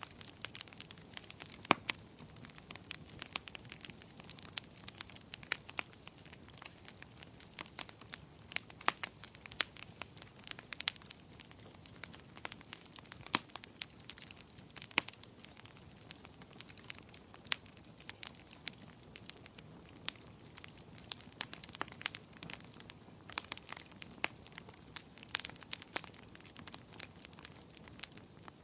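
Wood fire in a fireplace crackling: irregular sharp pops and snaps, sometimes several a second, over a soft steady noise of the burning.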